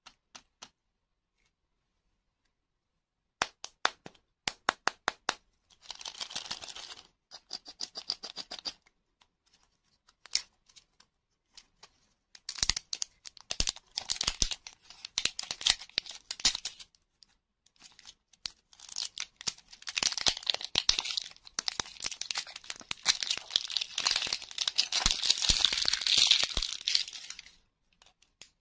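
Thin plastic wrapper being peeled and torn off a toy lollipop's round plastic capsule, with crinkling and crackling in long stretches that are loudest near the end. A quick series of sharp clicks comes a few seconds in.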